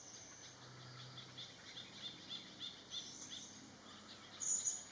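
Small birds chirping: a steady run of short, high chirps, with one louder, sharper note near the end.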